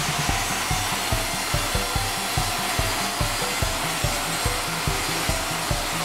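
Table band sawmill running and ripping a timber plank: a steady whirring hiss of the blade and motor, with a regular low thump about two to three times a second.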